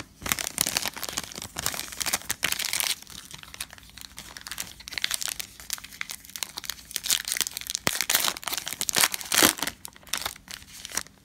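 Foil trading-card pack wrapper of a Panini Prizm basketball hobby pack being torn open and crinkled by hand: a continuous crackling rustle full of sharp little crackles, louder in the first few seconds and again near the end.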